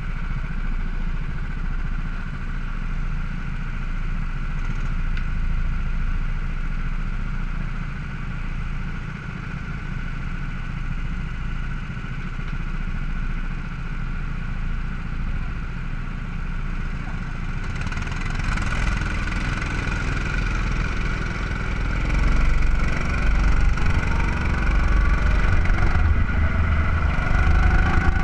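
Go-kart engines idling in the pit lane, then revving up as the karts pull away, the engine pitch rising and the sound growing louder through the last third.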